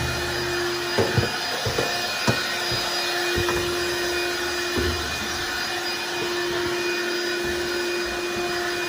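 Vacuum cleaner running steadily with a constant motor whine, picking up dryer-vent lint. Its nozzle knocks and bumps against things several times in the first five seconds.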